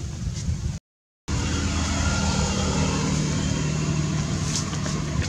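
Low wind rumble on the microphone, cut by about half a second of dead silence a second in, then a steady low hum like a motor vehicle engine running.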